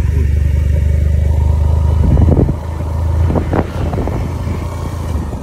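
Motorcycle engine running steadily while riding, easing off about halfway, with a few knocks and rattles along the way.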